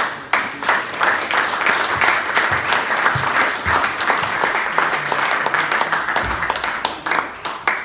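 Audience applauding loudly, many hands clapping together; the applause stops abruptly near the end.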